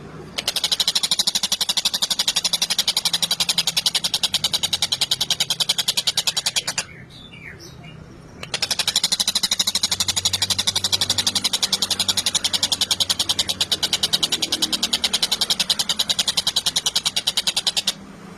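Tengkek buto (a kingfisher) calling in long, very fast runs of rapid high notes, a steady rattling chatter; one run stops about seven seconds in and another starts about a second and a half later.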